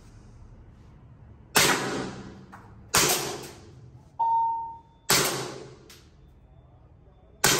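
Sig Air M17 P320 green-gas blowback airsoft pistol firing four single shots at uneven intervals. Each is a sharp crack of the gas and cycling slide that rings out in the echo of a narrow indoor range. A short steady ringing tone follows about a second after the second shot.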